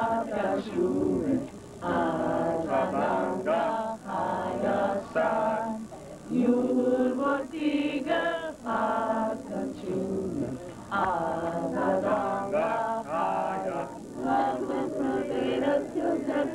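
A group of voices singing a slow song together, in phrases broken by short pauses.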